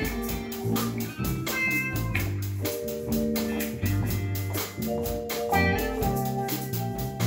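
Live band playing: electric bass and electric guitar over a steady hand-drum beat.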